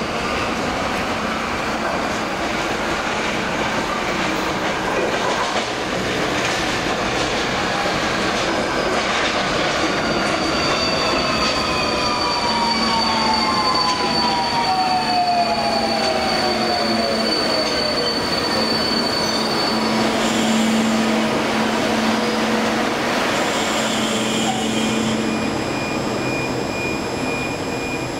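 Alstom Metropolis AM5-M2 metro train pulling into the station: steady rolling noise with wheels squealing on the rails and a whine that falls in pitch as the train slows, then a steady hum.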